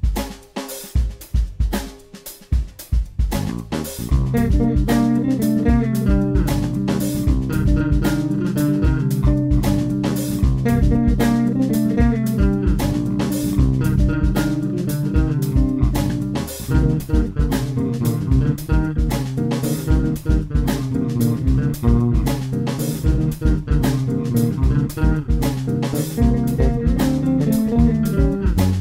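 A drum kit plays a groove alone, then about four seconds in several overdubbed electric bass parts come in over the steady beat, with low sustained bass notes under higher melodic bass lines.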